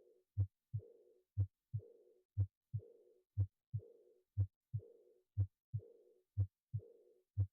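Heart sounds beating about once a second, each beat a pair of thuds, with a soft, fading blowing murmur after the second sound of each pair. This is the decrescendo diastolic murmur of aortic regurgitation.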